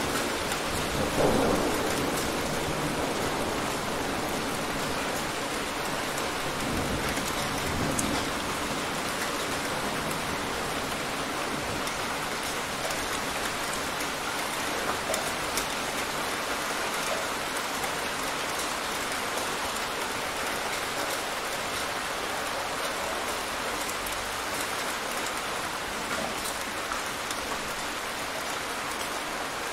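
Rain storm: steady heavy rain falling, with low rumbles of thunder about a second in and again around seven to eight seconds in.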